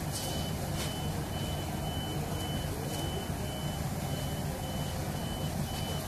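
A diesel engine running steadily, with a vehicle's reversing alarm giving a run of high beeps.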